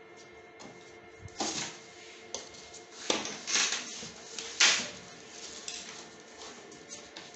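Plastic housing of a split air conditioner's indoor unit being handled and worked loose: a few short scrapes and plastic clatters, the loudest about three and a half and four and a half seconds in.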